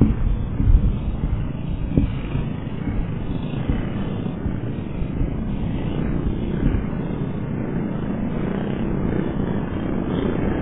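Engines of Junior 2 short-course off-road race karts and a utility vehicle running together as one steady, distant drone, with a few brief low bumps in the first two seconds.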